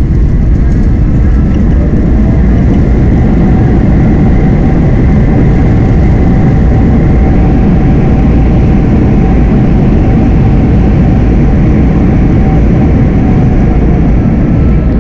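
Airplane landing: a loud, steady roar of engines and rushing air, with a faint steady whine above it.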